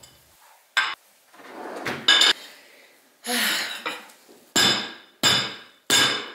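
Hard objects knocking and clinking, each with a brief ring, between scraping rustles. The last three knocks come evenly, a little under a second apart.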